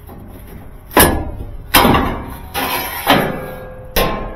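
The sheet-metal back panel of a top-load washing machine is pulled off and handled, giving about five loud bangs and clanks, roughly one a second, each with a short metallic ring.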